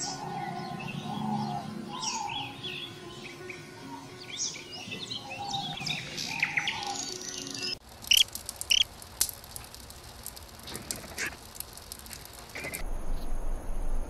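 Small songbirds chirping and calling, many short quick notes. The chirps change character after a break about halfway through, and a steady high-pitched hum starts near the end.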